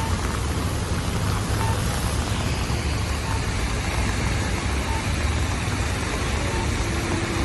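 Rainy city street: steady traffic rumble under an even hiss of rain and wet road. A faint short beep repeats about every second and a half.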